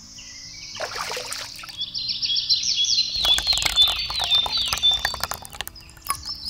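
Small birds chirping in quick, repeated falling chirps, over a light trickle of water poured from a tiny bucket onto sand.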